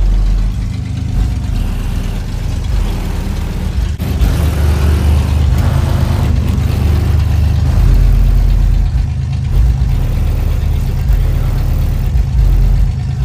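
Car engine running at idle with a deep, steady rumble, swelling slightly about four seconds in and again around eight seconds.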